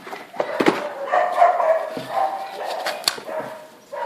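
A dog whining and yipping in short held cries, with a few sharp clicks of things being handled.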